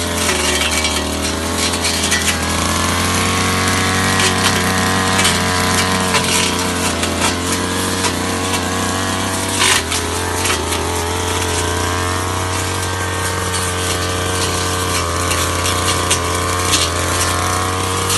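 Ogawa backpack brush cutter's small two-stroke engine running hard as it cuts through thick grass and brush, its pitch rising and sagging with the load. Many sharp ticks and clinks come from the spinning blade striking stems.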